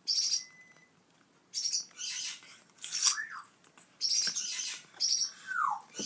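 African grey parrot chicks giving harsh, hissy begging calls, several short ones in a row, with two brief falling whistles mixed in, as they beg for food during hand-feeding.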